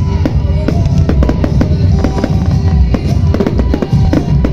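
Fireworks bursting and crackling many times in quick succession over loud music with a drum beat.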